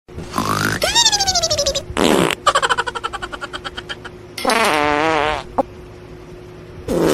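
A string of fart sounds: a squeaky one that rises and then slides down in pitch, a sputtering run of rapid pops that slows and fades, then a wobbling pitched one.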